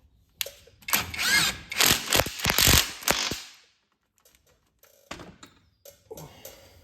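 Power tool run in a few short spurts, its motor pitch rising and falling as it drives a bolt home through new suspension arm bushings; a few fainter metal clicks follow near the end.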